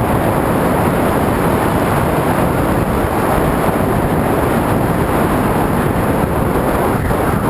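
Steady, loud rush of wind and riding noise from a mountain bike in motion, buffeting the camera's microphone.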